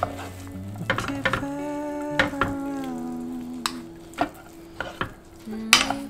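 Wooden spatulas stirring and tossing shredded strips through a sticky chili seasoning in a ceramic pan, with wet, squelching mixing noise and scattered knocks of the spatulas against the pan, the loudest near the end. Soft background music plays underneath.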